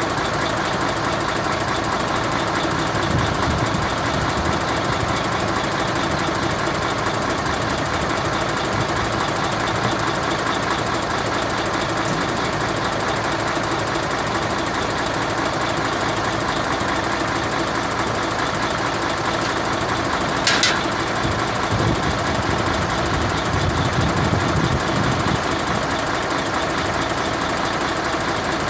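Mercedes-Benz Actros 1844 truck's diesel engine idling steadily, with one short click about twenty seconds in.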